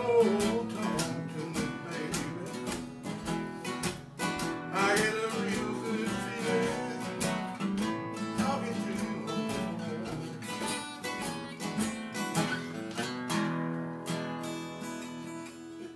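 Two acoustic guitars strumming and picking a blues together in an instrumental break; the playing quietens near the end.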